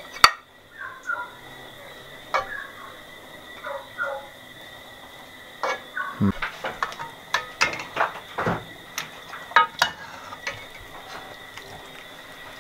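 A metal spoon scraping and clinking against a metal pot and a ceramic plate as boiled rice is dished out: irregular clinks and knocks, busiest in the second half.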